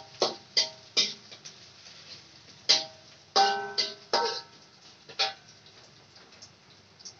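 Metal spatula clanking and scraping against a metal wok while stirring: about nine sharp clanks, several ringing briefly, coming thickest around the middle.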